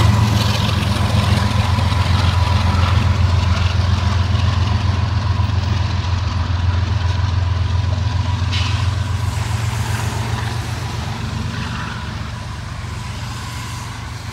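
Diesel locomotive at the rear of a loaded coal train, its engine a steady low drone that fades gradually as it moves away. A thin steady high tone sits above the drone.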